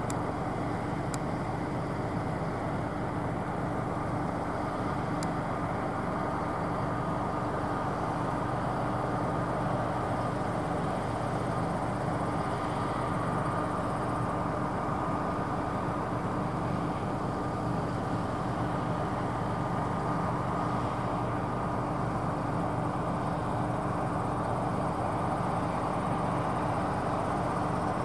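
Claas Tucano 570 combine harvester running steadily under load while harvesting grain, a constant machine drone with a few steady tones held throughout.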